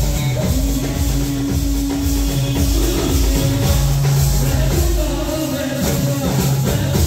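Band music: a melody of long held notes over a steady drum beat.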